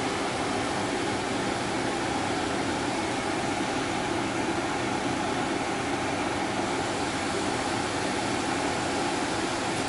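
Window air conditioner running: an even, steady fan rush with a faint low hum underneath.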